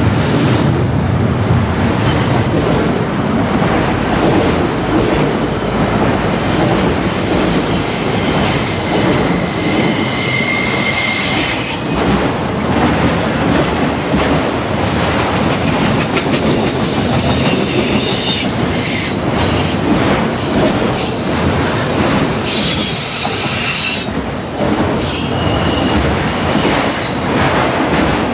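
Freight train cars (double-stack container cars, then autoracks) rolling past close by: a steady rumble of steel wheels on rail with clicking over rail joints. High-pitched wheel squeal rises over it about a third of the way through and again in the last third.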